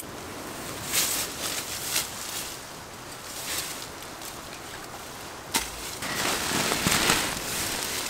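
Rustling and shuffling in dry fallen leaves while camping gear is handled, with a sharp click at the start and a few short crackles. A louder stretch of rustling begins a little past five seconds in.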